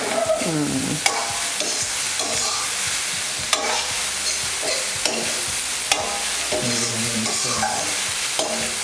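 Cold cooked rice being stir-fried in a hot pan: a steady sizzle, with a spatula scraping and clicking against the pan now and then.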